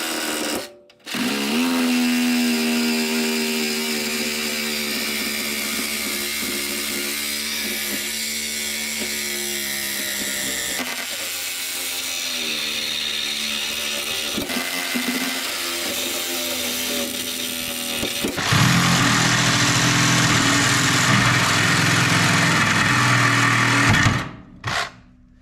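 Sawzall reciprocating saw cutting through a steel frame rail. It runs steadily after a brief stop about a second in, turns louder and rougher about 18 seconds in, and stops near the end with one short last burst.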